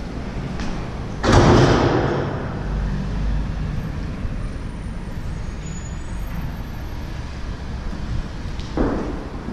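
Road traffic rumbling on the street below. A loud sudden noise comes about a second in, and a shorter one near the end.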